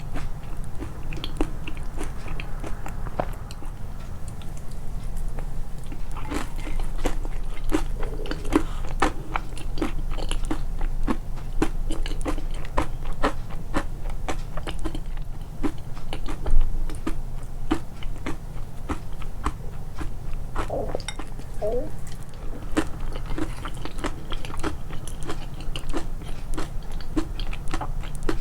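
Close-miked chewing of crunchy food, with many crisp, irregular crunches a second.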